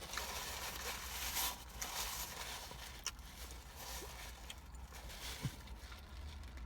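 Faint rustling and handling noise from a fast-food chicken sandwich and its wrapping being handled, with a few soft clicks over a low steady hum.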